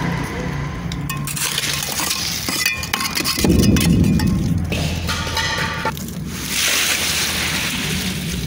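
Wet concrete being tipped from a metal pan and worked into a brick formwork by hand: a heavy wet slop about three and a half seconds in, quick metallic clinks of the tool against the pan, and scraping near the end.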